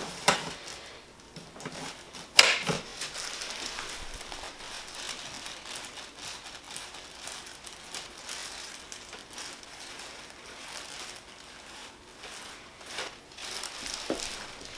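Faint rustling as a patient shifts on a chiropractic treatment table, with a sharp click about two and a half seconds in and a smaller one at the start.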